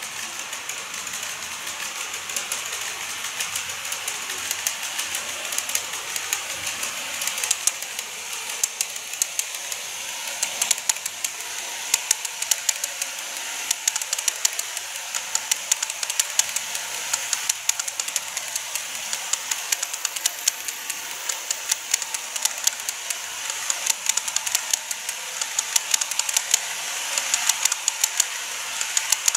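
Greenmax N-gauge model of a Tobu 50050 series electric train running along the track: a steady hiss with rapid, irregular clicking, getting a little louder as it goes.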